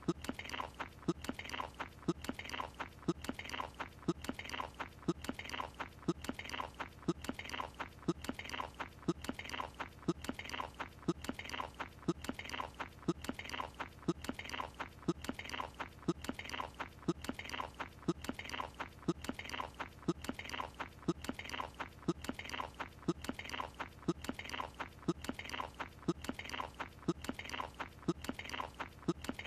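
Cartoon character chewing a croissant with loud open-mouthed chomps, repeating at an even pace of about two a second.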